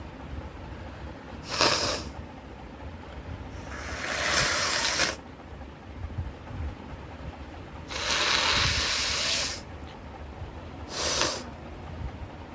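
A person blowing her nose hard, four separate times: short blasts about 1.5 s and 11 s in, and two longer blows of about a second and a half each, around 4 s and 8.5 s in.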